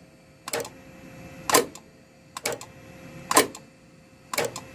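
JACK JK-T1900 electronic tacker's work clamp clacking down and up five times, about once a second, over the faint steady hum of the machine, with the clamp set at its highest point.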